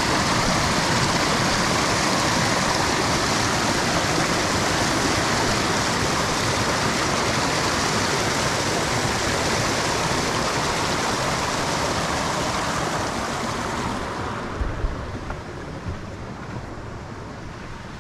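Small waterfall on a creek: a steady rush of water that fades away about fourteen seconds in. A few light knocks follow.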